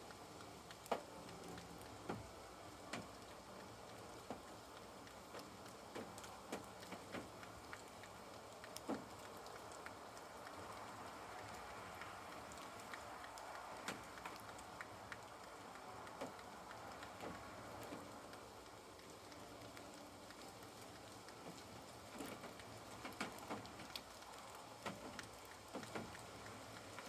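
Light rain and drips falling on a caravan: a faint steady hiss with irregular sharp ticks of single drops, coming more thickly near the end.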